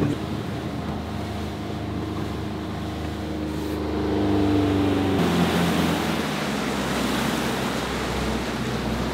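A boat's 150 hp outboard motor running steadily at cruising speed, a droning hum heard from inside the cabin. About five seconds in, the rush of the churning wake and wind comes up louder over the engine.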